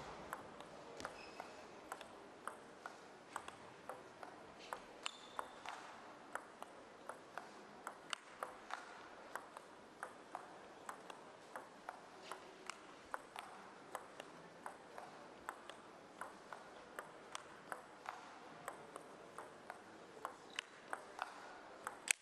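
Celluloid-free plastic table tennis ball clicking off the rackets and the table in one long rally, about two to three sharp hits a second.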